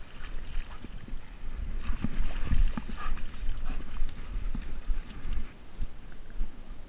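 Wind and movement noise on a camera strapped to a German shepherd's head as the dog moves through grass: an uneven low rumble broken by irregular knocks.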